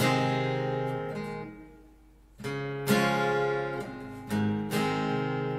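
Acoustic guitar strumming chords. The first chord is left to ring and fade for about two seconds, then several strums follow in quick succession.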